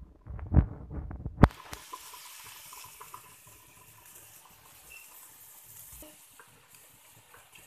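A few sharp knocks and clicks in the first second and a half, then a steady hiss of water boiling in a wok with prawns in it.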